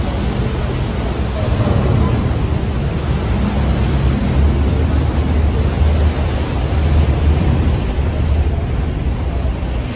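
Steady low rumble of a passenger ferry's engines under a constant rush of wind and water noise, as heard on deck while the boat is underway.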